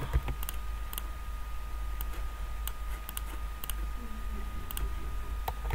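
Computer keyboard being typed on, with scattered key clicks at irregular intervals as numbers are entered, over a steady low hum.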